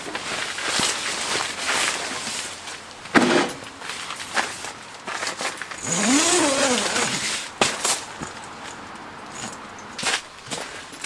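Camping gear being handled: rustling and scattered knocks and clinks, with a short squeak that rises and falls in pitch about six seconds in.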